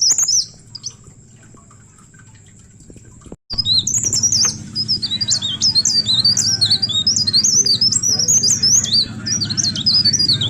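Cikrak daun (a leaf warbler) singing a fast, chattering string of high chirps that quickly rise and fall. The song breaks off about half a second in and comes back abruptly after about three seconds, then runs on unbroken over a steady low hum.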